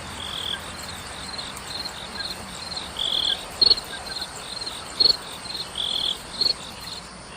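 A chorus of small animals giving rapid high-pitched chirps, about two short chirps a second, with a few longer buzzy trills and a few sharper, louder calls mixed in over a steady hiss.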